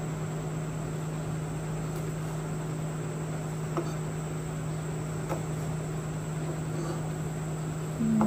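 Kitchen knife slicing red chili lengthwise on a plastic cutting board, with a few faint taps of the blade on the board, over a steady low hum and a thin high whine. A brief, louder low tone sounds near the end.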